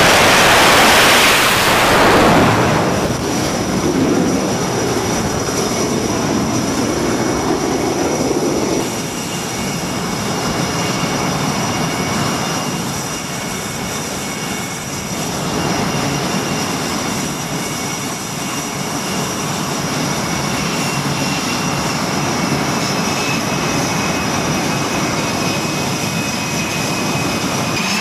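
Carrier jet at full power on catapult launch: a loud rush of jet engine noise that falls away about two seconds in. It is followed by jet engines running on the flight deck, a steady rumble and whine with thin high whistling tones.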